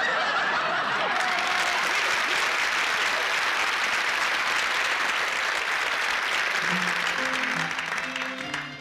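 Studio audience applauding. Near the end, acoustic guitars begin picking the intro of a folk-pop song.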